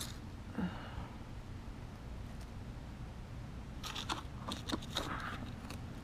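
Garden trowel digging and scraping through loose potting soil in a pot, with a brief scrape early on and a cluster of short, crunchy scrapes in the second half.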